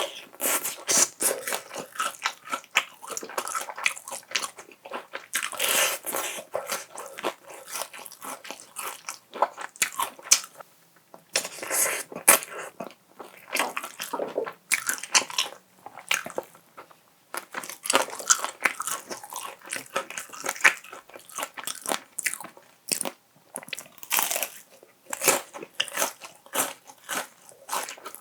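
Close-miked crunching and chewing of crispy fried chicken: irregular sharp crackly bites and chews, with a couple of brief pauses.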